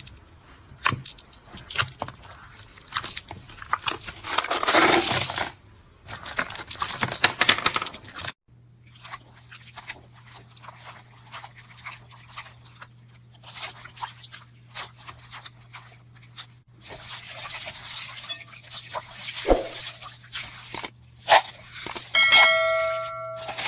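Slime being pressed and squished by fingers, with crackling and crunching from the beads set in it; then hands knead clear slime and let small plastic cube beads fall into it, with clicking and crunching. A short electronic chime sounds near the end.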